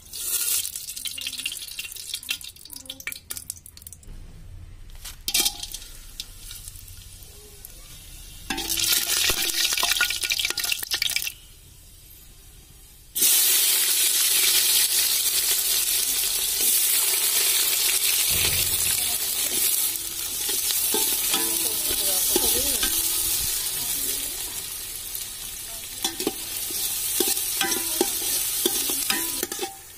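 Sliced onions frying in hot cooking oil in an aluminium pot: a quieter sizzle early on turns into a loud, steady sizzle partway through as the onions go into the oil, with a metal spatula scraping the pot as they are stirred.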